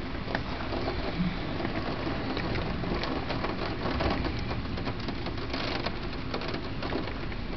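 Steady rain falling in a thunderstorm, with many close drops ticking sharply on a surface.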